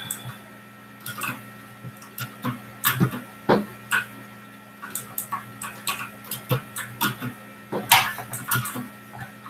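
Irregular sharp clicks and knocks, a dozen or more at uneven intervals, over a steady electrical hum.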